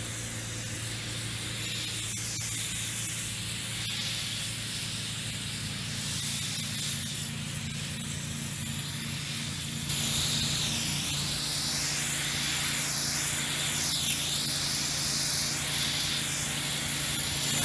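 Low-pressure steam hissing steadily from a Weedtechnics SW 900 steam lance onto wooden cheese boards, over a steady low machine hum. The hiss grows louder and brighter about ten seconds in.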